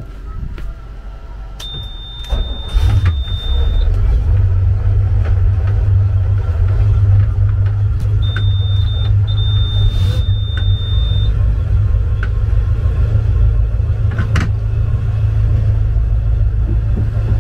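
Twin MerCruiser 7.4 L big-block V8 inboards of a Sea Ray 330 Sundancer being started at the helm. A high steady warning buzzer sounds for about two seconds, then an engine catches about three seconds in and settles into a deep, steady idle. The buzzer sounds again for about three seconds midway, and the idle rumble carries on.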